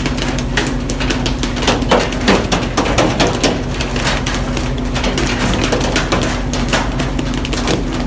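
Fishing boat's engine running with a steady low hum, under many irregular sharp knocks and splashes as the crew work pole-and-line rods over the rail.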